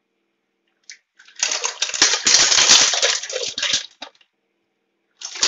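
Raw mussels poured from a bowl into an empty pot, their shells clattering against the pot and each other for about two and a half seconds. A second, shorter clatter of shells comes near the end.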